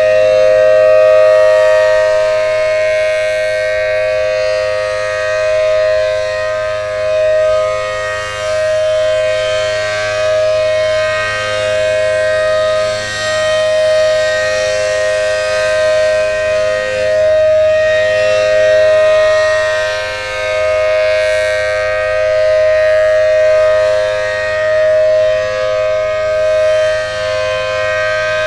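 Alerting Communicators of America Allertor 125 (first-generation, 10/12 port) outdoor warning siren sounding its steady Alert signal: a sustained two-note chord held at one pitch, swelling and fading about every three seconds as the siren head rotates.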